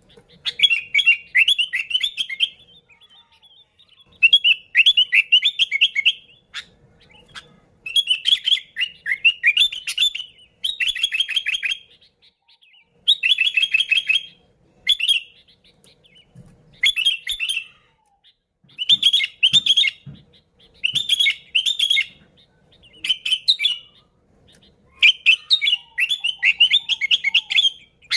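Sooty-headed bulbul (kutilang) singing: about a dozen short phrases of quick, warbling chattering notes, each one to two seconds long, with brief pauses between them.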